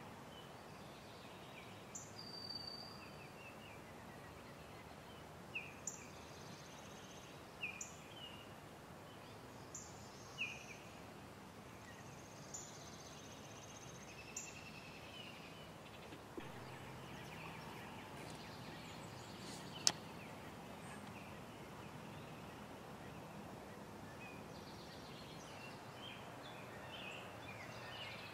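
Birds singing: one bird repeats a short, high phrase about every two seconds through the first half, and other calls come in near the end, over a faint steady background hiss. A single sharp click about twenty seconds in.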